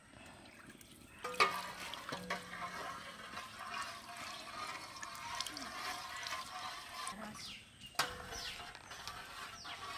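Cooking oil being poured into a kadai: a steady splashing pour that starts about a second in, breaks off briefly near the end and then resumes.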